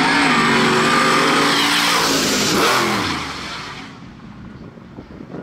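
Two pickup trucks' engines at full throttle in a street drag race, pulling hard, with a drop in pitch about two and a half seconds in as a gear changes. The sound then fades quickly as the trucks pull away.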